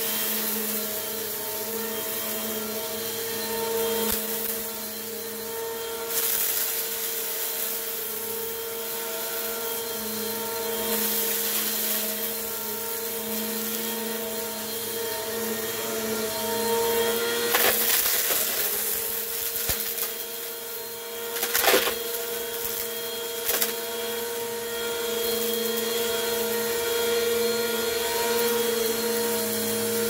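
Bissell PowerForce Compact upright vacuum cleaner running steadily with a constant motor hum while sucking wood-shaving debris off carpet, with crunching and crackling as the debris goes up the nozzle. Three sharp cracks stand out in the second half, the loudest about three-quarters of the way through.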